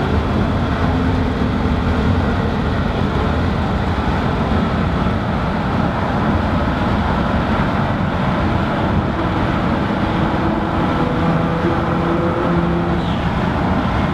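Nissan GT-R's twin-turbo V6 with an aftermarket Armytrix exhaust, heard from inside the cabin while driving: a steady engine drone over road noise.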